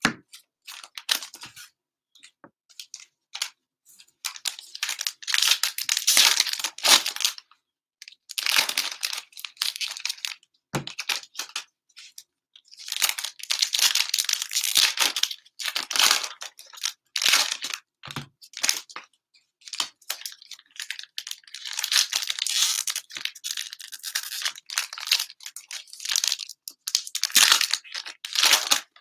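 Plastic wrappers of Panini Mosaic football cello packs being torn open and crinkled by hand, in repeated stretches of rustling and tearing separated by short pauses.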